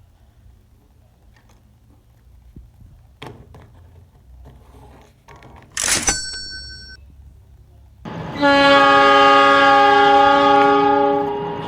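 A few faint clicks, then a sharp knock with a short ringing chime about six seconds in. Near the end a loud train horn sounds for about three seconds: a steady chord of several tones at once.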